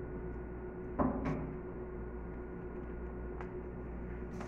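Steady low electrical hum of the room, with a soft knock about a second in, a few faint clicks, and a short brushing rustle close to the microphone near the end.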